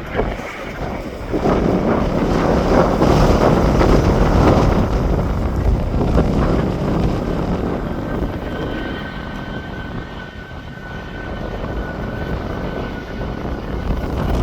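Aircraft engines running with a rushing roar, heavy in the first few seconds, over wind buffeting the microphone; a steady high engine whine comes in about halfway through and holds until near the end.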